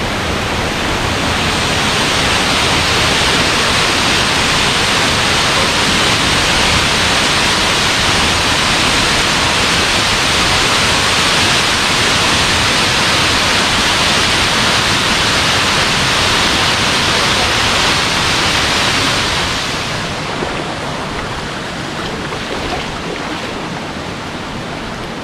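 Waterfall rushing steadily, heard up close at the top of the drop. It gets somewhat quieter about twenty seconds in.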